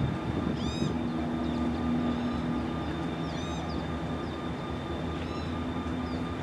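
BNSF diesel locomotives idling with a steady low engine rumble and a thin high whine. Birds call in short arching chirps several times over the top.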